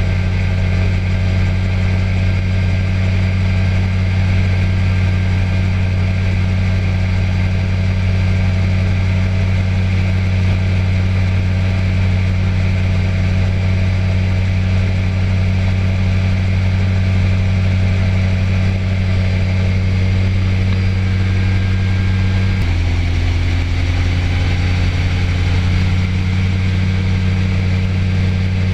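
Light aircraft engine running steadily in flight, heard from on board; its note shifts briefly about three quarters of the way through, then settles again.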